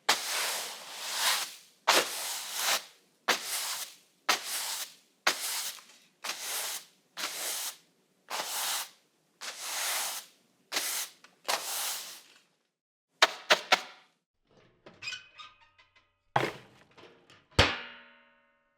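A run of separate household-object sound effects: about a dozen short scraping or rubbing strokes, each starting with a click. Then three quick clicks, a faint rattle, and two sharp knocks with a ringing tail near the end.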